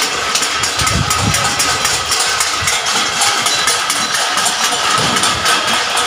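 Many people clapping and beating metal plates together, a dense, continuous clatter.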